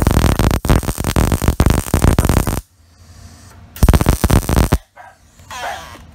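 MIG welding arc from an Eastwood MIG 135 on steel horseshoes, crackling loudly for about two and a half seconds, stopping, then crackling again in a second burst about a second long.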